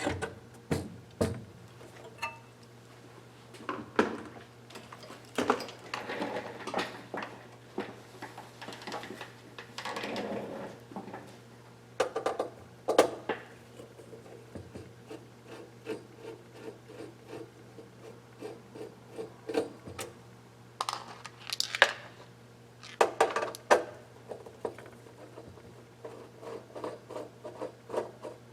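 Clicks, knocks and rubbing from an electronic I/O unit being handled and taken apart on a workbench, with runs of regular ticking, over a steady low hum.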